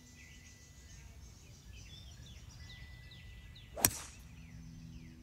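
A 4 wood striking a golf ball off the tee, a single sharp crack about four seconds in.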